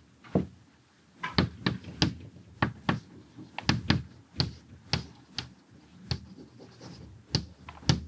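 Irregular sharp taps and clicks, about two a second, of writing on a board while a diagram of arrows and dots is drawn.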